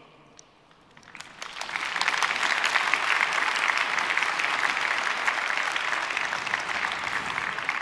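Large audience applauding in a hall. The clapping starts about a second in, builds to a steady level and begins to fade near the end.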